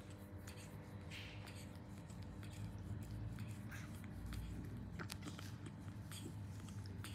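Soft, scattered clicks and smacks of a baby monkey sucking milk from a feeding bottle, over a steady low hum.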